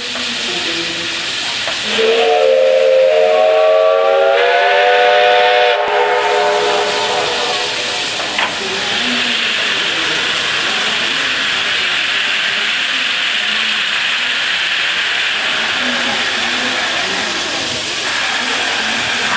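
Soviet L-class steam locomotive L-3055 hissing steam, then sounding its steam whistle in one long blast of about four seconds that steps up slightly in pitch partway through and tails off. After it comes a steady loud hiss of steam venting.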